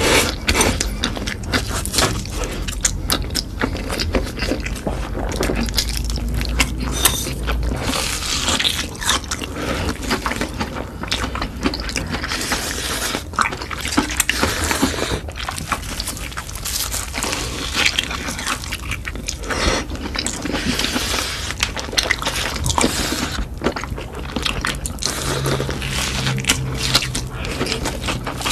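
Close-miked eating sounds: crisp crunching bites into a crumb-coated fried cheese stick, mixed with chewing and slurping of noodles, as many irregular crackly clicks and mouth noises.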